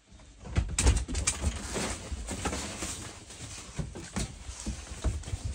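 Irregular thumps, knocks and rustling of movement in a cramped room, with low bumps of handling on the microphone; the loudest thump comes about a second in.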